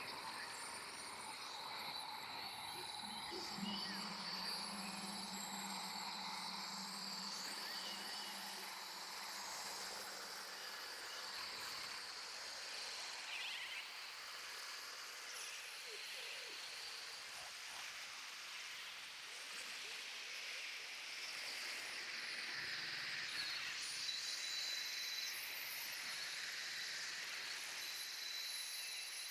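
Jungle-style ambience: a steady bed of insect chirping and buzzing over a continuous rushing noise, with a low hum for a few seconds near the start.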